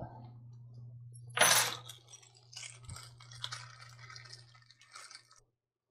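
A small plastic hardware bag is torn open sharply about a second and a half in, then crinkles while the small steel bolts inside click and rattle. A low steady hum runs underneath.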